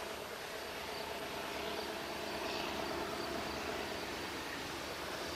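Locomotive running as it comes out of a tunnel, a steady engine hum that grows slightly louder, with crickets chirping.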